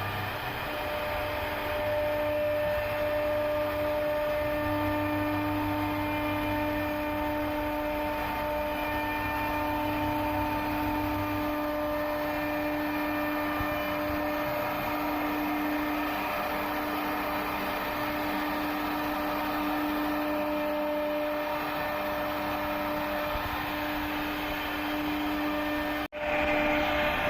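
CNC router spindle running steadily as it carves wood, a constant whine over a noisy hiss of cutting, with a sudden brief break near the end.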